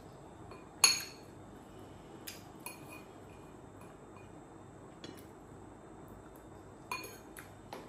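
Metal spoon clinking against a ceramic plate while eating: one sharp, ringing clink about a second in, then a few lighter clinks and taps.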